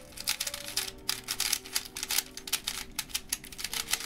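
MF8 Legend 3x3 ball-core speed cube being turned fast by hand: a quick, uneven run of plastic clicks and clacks as its layers turn. It turns roughly straight out of the box and needs tensioning and lubing.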